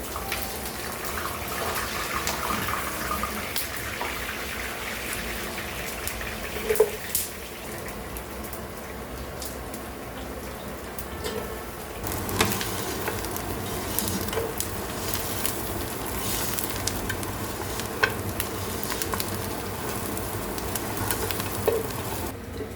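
Food frying and sizzling in a pan, with scattered clicks and knocks of a utensil stirring it. About halfway through the sound shifts and a low hum comes in.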